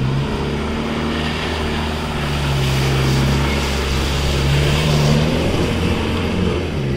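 An off-road vehicle's engine running steadily, its pitch lifting a little in the middle and easing toward the end, over a steady hiss.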